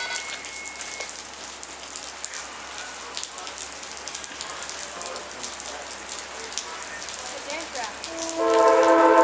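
Steady rain falling with scattered drips. About eight seconds in, an approaching Amtrak Genesis diesel locomotive's air horn starts, loud and held as a multi-note chord.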